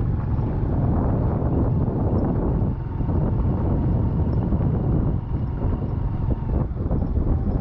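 Steady vehicle rumble with wind noise on the microphone, and a faint steady whine.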